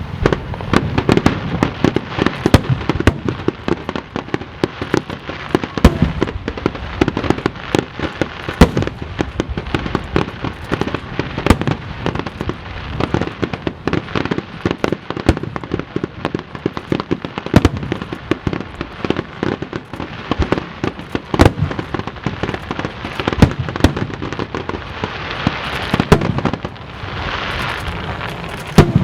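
Aerial fireworks display: a dense, continuous barrage of shell bursts and crackling, several bangs a second.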